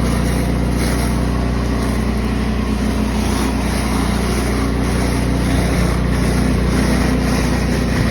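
Pressure washer running steadily, its engine's hum under a loud, even hiss.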